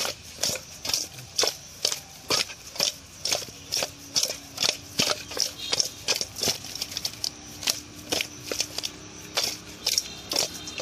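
Spice-coated tilapia pieces tossed in a stainless steel bowl: wet fish slapping and thudding against the metal in a steady rhythm, about two to three times a second.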